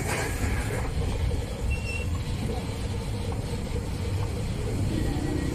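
Steady low rumble of road traffic, vehicle engines running.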